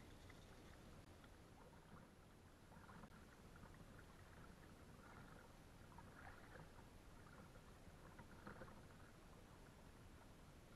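Faint splashes of a kayak paddle dipping into the water: several soft strokes, a second or so apart, over a quiet hiss.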